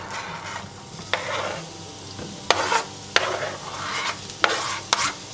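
Diced onion being pushed off a plastic cutting board with a knife into oil in a frying pan, starting to sizzle. About six sharp knocks and scrapes of the knife blade against the board are spread through it.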